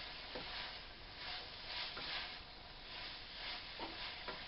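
Stir-fry vegetables sizzling steadily in a pan, with a few light clicks.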